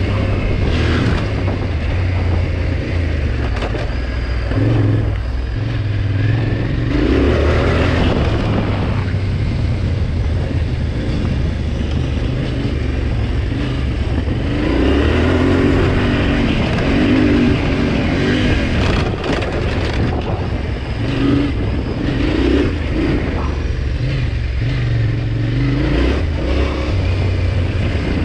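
Yamaha Ténéré 700's parallel-twin engine running under way on a dirt track, the revs rising and falling as the throttle is worked, with wind noise and occasional knocks over the bumpy surface.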